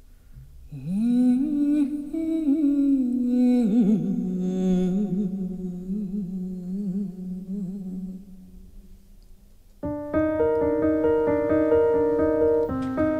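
A woman's voice humming a slow, low melody with wide, wavering ornaments, opening a minimal arrangement of a Korean folk song. About ten seconds in, a piano comes in suddenly with an evenly repeating pattern of notes.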